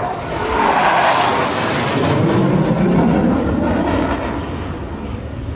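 USAF Thunderbirds F-16 Fighting Falcon jets passing by, a loud jet-engine noise that swells about a second in with a sweep falling in pitch, then turns lower and eases off toward the end.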